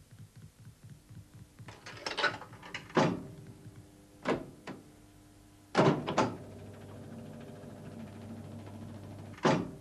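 Jukebox selection buttons being pressed, with a series of sharp mechanical clicks and clunks. From about six seconds in a steady low hum runs under the knocks.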